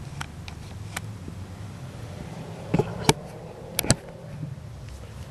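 Sharp metal taps of a hammer on a Corvair's rear drum-brake wheel cylinder, knocking out pistons seized by corrosion. A couple of light ticks come first, then four harder strikes in two quick pairs about three and four seconds in.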